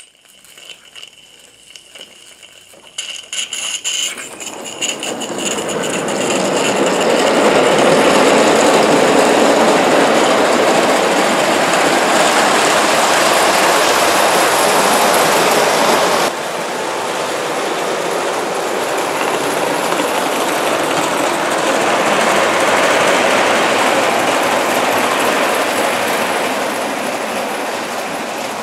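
Bassett-Lowke O gauge live-steam Enterprise locomotive and tender running on three-rail tinplate track. A few faint clicks give way to a steady rattle of wheels on the rails that builds over a couple of seconds and then runs on. The level drops suddenly a little about halfway.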